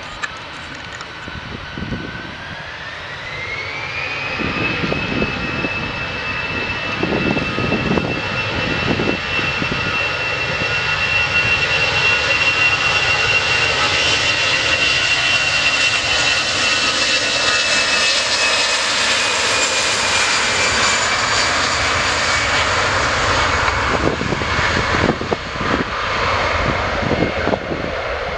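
An Airbus A320-family jetliner's twin turbofan engines spool up to takeoff thrust, with a whine rising in pitch about two to four seconds in. The engine noise then holds steady and grows louder as the aircraft accelerates past on its takeoff roll, easing a little near the end as it lifts off away.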